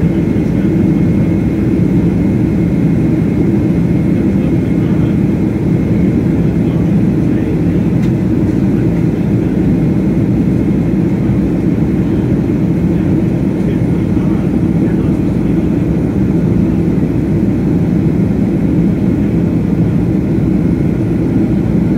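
Steady cabin noise of a Boeing 767 airliner in flight: the even drone of its jet engines and rushing air, heard from inside the passenger cabin.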